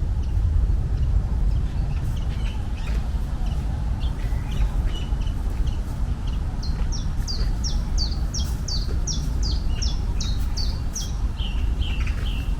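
A songbird singing: scattered short chirps, then from about seven seconds in a run of a dozen or so quick high notes, each sliding down in pitch, about three a second, ending in a few lower notes. Under it runs a steady low rumble.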